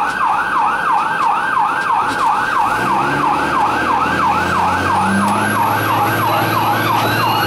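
Fire rescue truck's electronic siren in yelp mode, a fast rising-and-falling wail about four times a second, heard from inside the cab as the truck runs to an emergency call.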